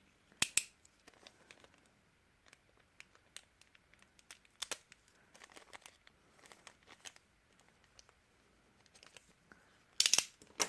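Pencil packaging being handled and opened: scattered crinkling, tearing and small clicks, with louder crackles about half a second in and again near the end.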